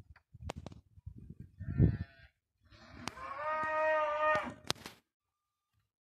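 A cow mooing once, one long call of about two seconds in the second half. Before it come a few low thumps and sharp clicks, the loudest thump just before the two-second mark.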